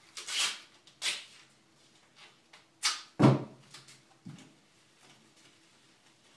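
Duct tape being pulled off the roll and ripped in three short rasps, then a sharp thump about three seconds in and a lighter knock a second later.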